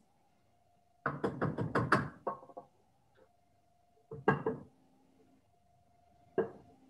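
Rubber spatula knocking and scraping against a glass bowl as melted chocolate is scraped out: a quick run of about seven knocks about a second in, then two single knocks.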